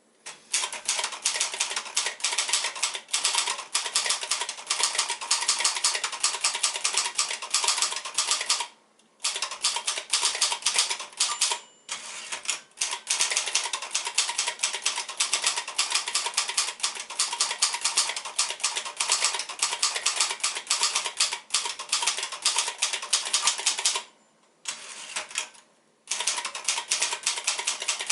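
1971 Royal Signet ultraportable manual typewriter being typed on quickly: a fast, continuous patter of keystrokes, broken by a few short pauses.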